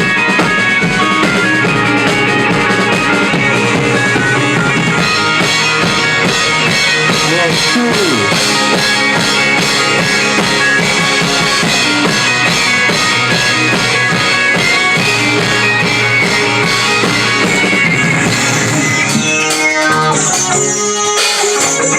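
A rock band playing live: drum kit and electric guitar together. Near the end the drums drop away and the guitar carries on.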